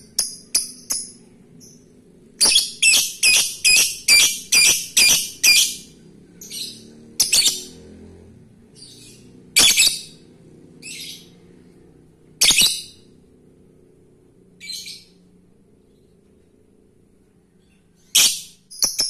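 A male Fischer's lovebird calling for a female with sharp, high-pitched chirps: a quick run of about eight calls a few seconds in, then single calls spaced further apart, with a pause of a few seconds before a last call near the end.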